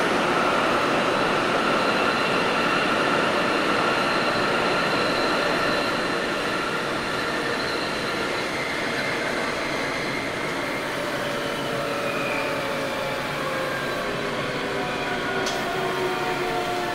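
Sendai Subway 1000N series train running, heard from inside the car: rail and wheel noise under a motor whine of several tones. From about ten seconds in, the tones fall in pitch as the train slows.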